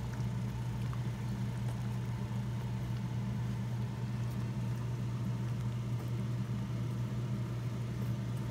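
Steady low mechanical hum, unchanging throughout, like a motor or fan running.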